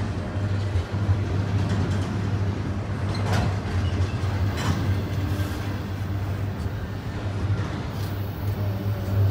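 Double-stacked container cars of a Norfolk Southern intermodal freight train rolling past: a steady rumble of steel wheels on rail, with two brief sharper noises about three and four and a half seconds in.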